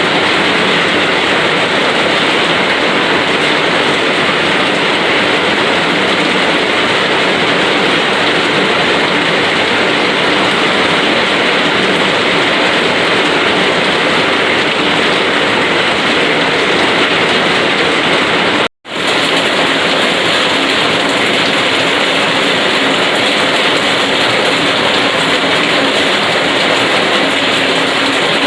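Heavy rain falling steadily as a dense, even hiss. It cuts out for an instant about 19 seconds in, then resumes unchanged.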